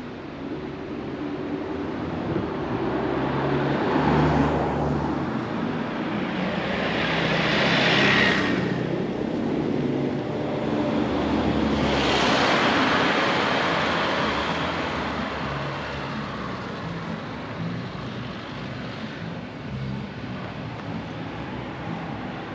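Motor vehicles passing close by on a road, the noise swelling and fading twice, loudest about a third of the way in and again about halfway through.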